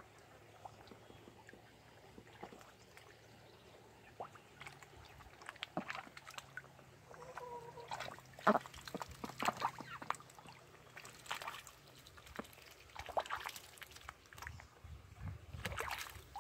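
Ducks dabbling with their bills in a shallow stream: irregular splashing and sloshing of water, in quick clusters that start about five seconds in.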